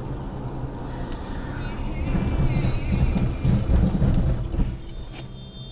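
Deep rumble of a car driving on a wet road, heard from inside the car, swelling about two seconds in and easing off near the end.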